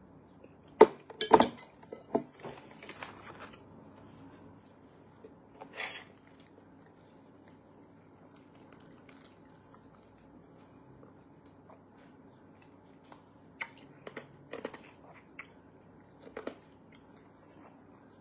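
Eating sounds: a metal spoon clinking against a ceramic soup bowl and saucer a few times in the first couple of seconds, then quiet chewing, with a few small clicks and clinks later while drinking from a glass.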